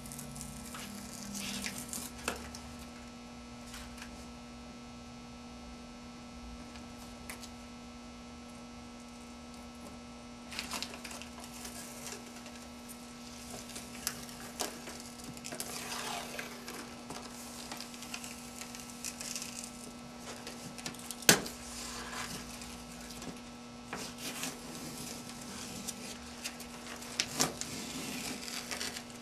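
Adhesive application-tape masking paper being peeled off a painted surface and crumpled in the hand: intermittent rustling and crackling with scattered clicks, the sharpest about twenty seconds in. A steady electrical hum runs underneath.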